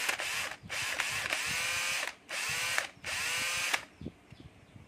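Red cordless drill's motor run in four short trigger pulls, the first two about a second long and the last two shorter. Each one spins straight up to full speed with a whine and cuts off quickly. The drill has lost its variable speed control but its brake still works.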